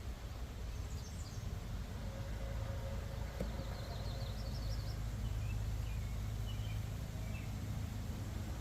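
Small birds chirping in short, high, repeated trills over a steady low outdoor rumble, with one faint click about three and a half seconds in.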